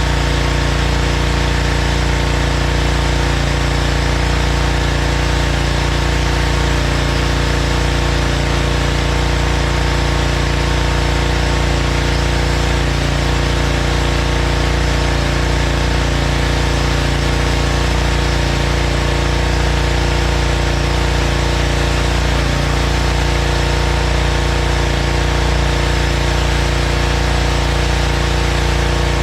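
Honda gas-engine pressure washer running steadily at constant speed, with a constant hiss over the engine note.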